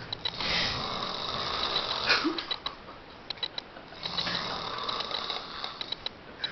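A person snoring with an odd rattling, clicking sound: two long rasping breaths a few seconds apart, with quick runs of clicks between them.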